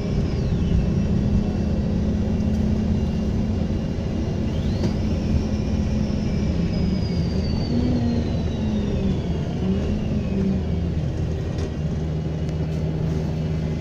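First South Yorkshire bus 67144's diesel engine running with a high turbocharger whistle. The whistle rises sharply about four and a half seconds in, then slowly falls away over the next six seconds. The tail of an earlier whistle fades out at the very start.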